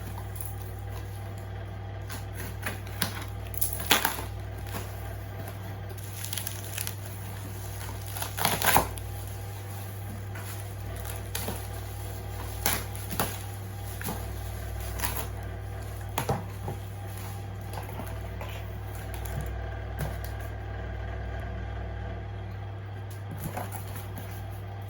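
Replacement laptop keyboards and their packaging being handled: irregular plastic clicks and short rustles, the loudest a few seconds in and again about eight seconds in, over a steady low hum.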